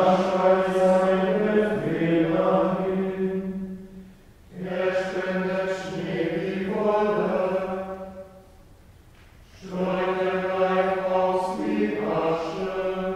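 Men's voices singing Gregorian chant of the Good Friday Tenebrae office in unison, mostly on one reciting note. The chant comes in three phrases of about four seconds each, with a breath of a second or so between them.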